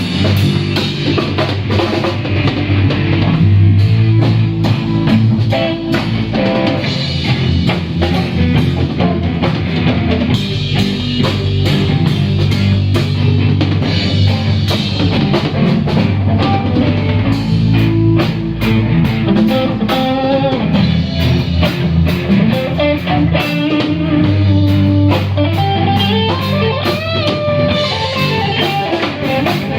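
Live rock jam on guitar and drum kit, played instrumentally. A guitar line with bending notes comes to the fore in the second half.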